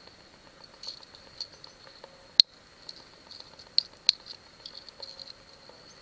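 Swiss Army knife blade whittling a small wooden fork: irregular short scrapes and sharp clicks as the blade cuts into the wood, the loudest a little before halfway through.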